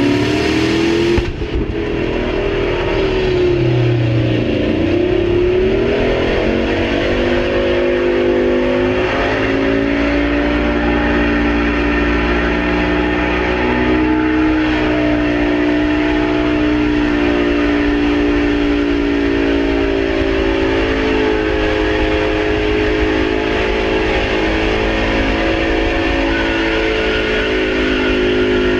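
Chevrolet Duramax diesel pickup engine running away at high rpm on a chassis dyno. Its pitch sags about four seconds in, climbs back and then holds steady and high: the engine is overspeeding out of control, feeding on fuel it cannot be shut off from.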